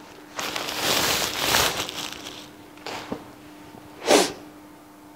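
Plastic mailer bag crinkling and rustling as a folded sweatshirt is pulled out of it, about two seconds of handling, followed by two brief rustles.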